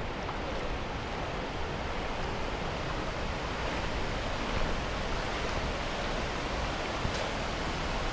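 Steady rushing of shallow river water around a person lying face-down in it, with a faint splash near the end as he lifts his head out.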